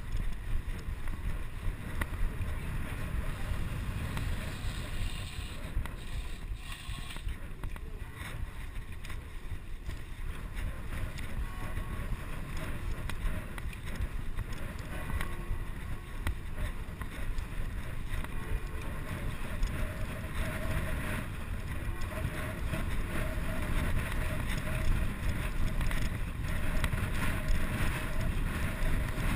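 Wind buffeting a chest-mounted action camera's microphone while a bicycle rolls over cobblestones, its tyres rumbling and the frame rattling with many small knocks.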